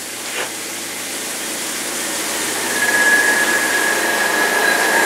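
Electric centrifugal juicer's motor spinning up: a whir that builds steadily, with a high whine coming in about three seconds in and holding.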